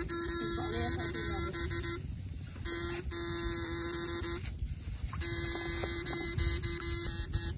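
Homemade backpack electrofishing rig buzzing with a steady electric hum while current is put into the water through the bamboo electrode poles. The buzz cuts out twice and comes back as the current is switched off and on again.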